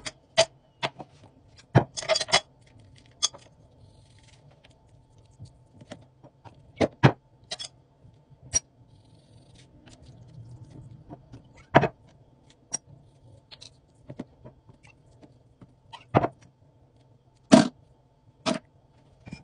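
Scattered sharp clicks and knocks of kitchen handling: fish pieces, a spoon and spice containers against a plastic strainer bowl. About a dozen irregular knocks over a faint steady hum.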